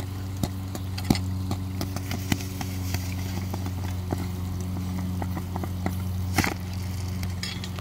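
A steady low motor hum, with scattered light clicks and one louder knock about six and a half seconds in, as metal tongs grip and lift a steel ingot mold.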